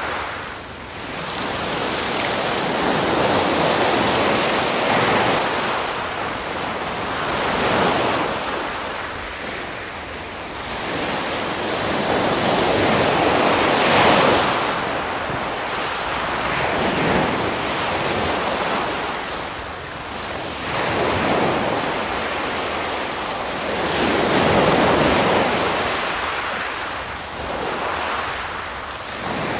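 Ocean surf: waves breaking and washing in, swelling and falling away every few seconds.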